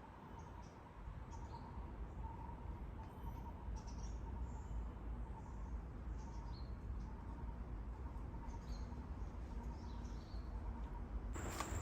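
Forest ambience: scattered short, high bird chirps and insect calls over a steady low rumble, with a faint wavering tone in the background. Near the end a louder rushing noise sets in.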